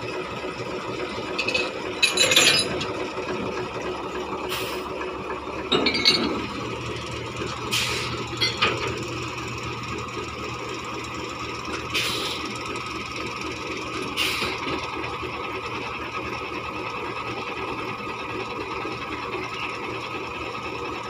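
Small narrow-gauge diesel locomotive idling steadily, with about six sharp metallic clinks and clanks spread through as its coupler and safety chains are handled during coupling.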